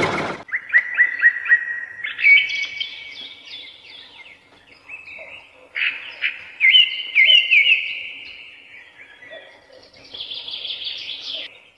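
A small electric pump motor's whir cuts off in the first half second. Then birds chirp in several quick runs of short notes, with pauses between the runs.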